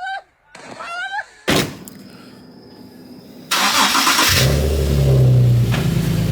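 Infiniti G37's 3.7-litre V6 cranked over by the starter and catching about four seconds in, then settling into a steady idle: its first start after a manual transmission and clutch swap. A single sharp knock comes about a second and a half in.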